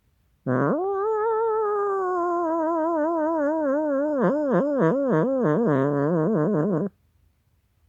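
Angry cat's long, drawn-out yowl lasting about six seconds. Its pitch slowly falls, then wavers quickly up and down in the second half.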